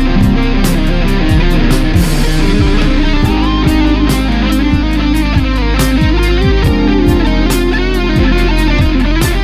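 Electric guitar played through a Line 6 Amplifi FX100 amp-modelling effects unit, in a loud rock-style mix with drums and bass keeping a steady beat.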